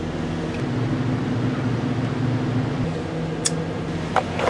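Steady hum of a railroad passenger car's equipment room running on 480-volt shore power, with several steady low tones over a noise of fans and air conditioning. A single light click comes about three and a half seconds in.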